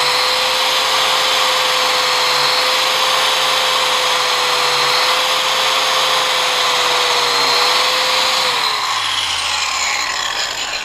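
Grinder spinning a steel wire brush wheel against an oxidized aluminium motorcycle fork leg, a steady motor whine under a loud scratching hiss as the brush strips the oxidation. Near the end the whine slides down in pitch and the scratching fades as the wheel winds down.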